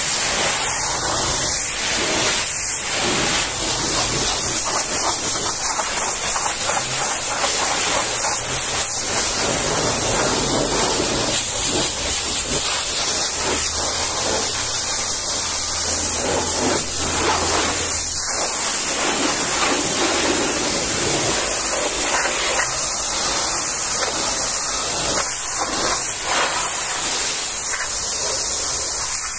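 Pressure washer lance blasting a high-pressure water jet onto a truck's metal sides, fuel tank and side guard: a steady, loud hiss.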